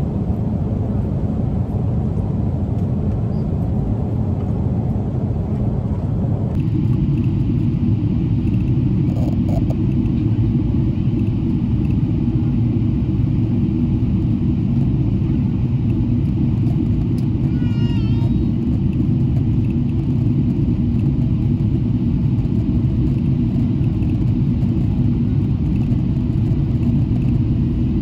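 Airliner cabin noise in flight: a steady low drone of the jet engines and rushing air, heard from inside the cabin, its tone shifting slightly about six seconds in.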